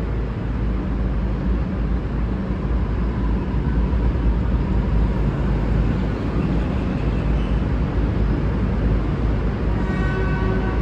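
Diesel engines of a V/Line VLocity diesel multiple unit running with a steady low rumble at the platform. Near the end a faint pitched tone with several overtones comes in.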